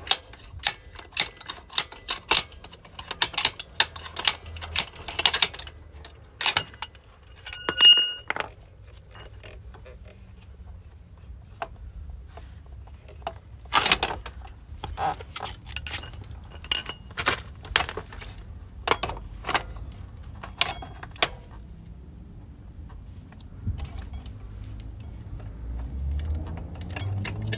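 Metal tools and parts clicking and clinking in irregular strokes, dense for the first few seconds, with one loud ringing metal clink about eight seconds in. A low rumble rises near the end.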